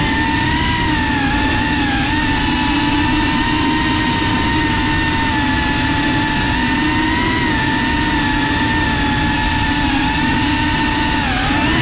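Onboard sound of a GEPRC CineLog35 cinewhoop FPV drone in flight: its brushless motors and ducted propellers give a steady whine over a rush of air. The pitch wavers slightly with throttle and dips briefly just before the end.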